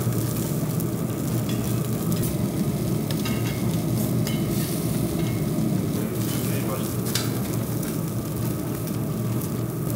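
Hanwoo beef sizzling as it cooks on a grill, a steady frying hiss with a few scattered clicks.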